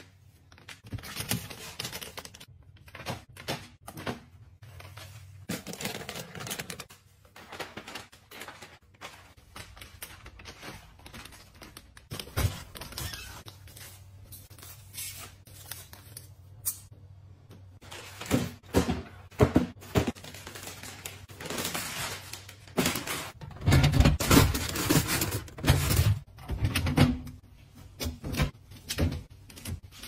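Hands unpacking fruit: crinkling plastic bag and rustling foam mesh sleeves, with many small clicks and knocks of fruit and cardboard boxes being handled. The knocks come thicker and louder in the second half, with a run of dull thuds.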